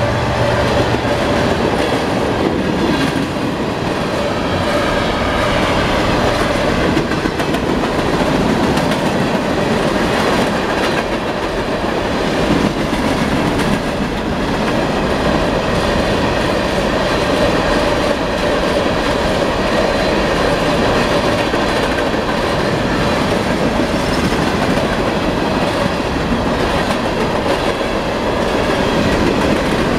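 Freight train passing close at speed: a steady loud rumble and rattle of the cars' wheels over the rail joints. The locomotive's multi-chime horn cuts off about a second in.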